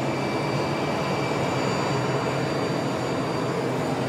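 Steady aircraft jet turbine noise: a constant rumble with a faint high-pitched whine held through it.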